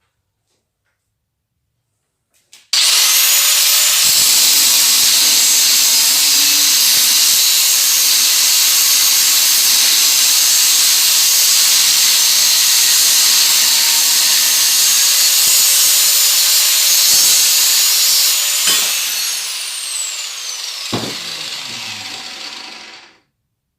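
Electric power tool starting abruptly and running loud and steady, working on wood, with a high whine. Near the end its motor spins down with a falling whine, there is a knock, and the sound dies away.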